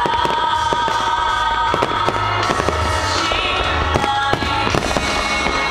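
Fireworks going off in rapid succession, a dense run of bangs and crackles with low rumbling booms, over music played on loudspeakers.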